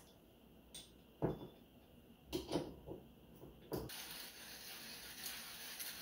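Manual coffee grinder being handled: a few knocks and clacks as its crank handle goes on, then from about four seconds in its ceramic burr grinding coffee beans as the handle is turned, a steady grinding noise.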